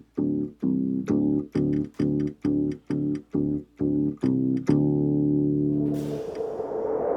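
Background music: a short chord repeated about twice a second, then a long held chord about five seconds in, giving way to a swelling rumble near the end.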